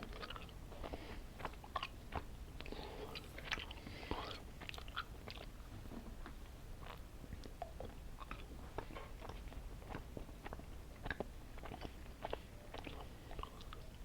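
A person chewing candy close to the microphone, with many small, irregular wet mouth clicks and smacks.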